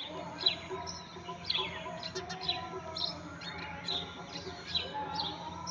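Sparrows chirping: repeated short, sharp chirps, about two a second.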